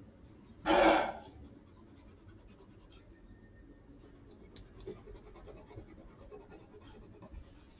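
Fingertip rubbing dried masking fluid off watercolour paper, making a faint, scratchy rubbing. A brief, much louder rush of noise comes about a second in.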